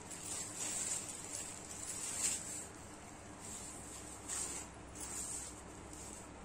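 Rustling of a silk saree being handled and unfolded by hand, in irregular swishes of cloth. The loudest comes about two seconds in, with more near four and five seconds.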